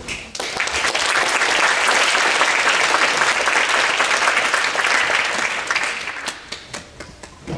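Audience applauding. The clapping starts right away, holds steady for several seconds, then thins to a few scattered claps near the end.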